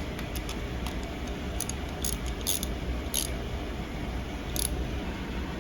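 Light metallic clicks and clinks of a hand tool working the bolts of a motorcycle engine's valve cover, about five scattered over a few seconds.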